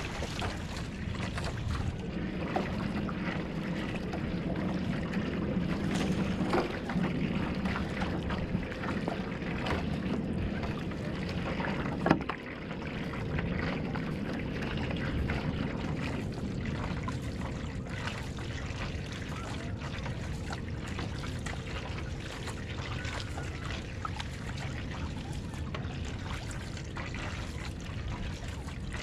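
Single-blade paddle strokes on a one-person outrigger canoe: the blade splashing in and out of the water, with water running along the hull, and one sharp knock about twelve seconds in.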